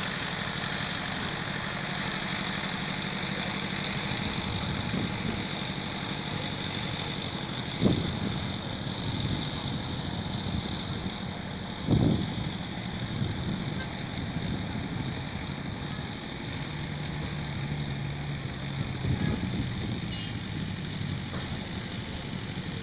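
Steady urban road-traffic noise with engines running, and two dull thumps, about eight and twelve seconds in. A low engine hum holds for a few seconds after the middle.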